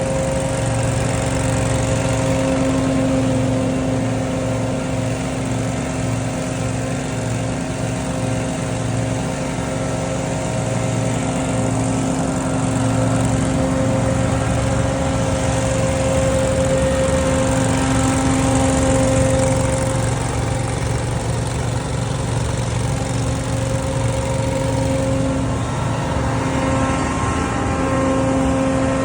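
Scag Windstorm stand-on debris blower running steadily at working speed: a constant engine drone under the rush of the blower fan, with the pitch wavering only slightly.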